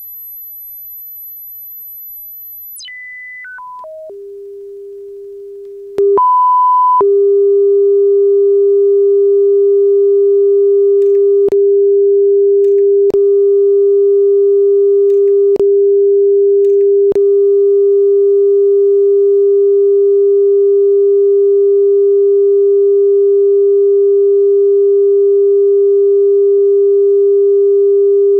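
Test tones from a Pioneer CT-939 cassette deck's output, as used for speed, level and wow/flutter measurement. A very high steady tone steps down in pitch through several short tones to a low one. Then, after a brief higher tone about six seconds in, a much louder steady low tone sounds, broken by a few tiny clicks.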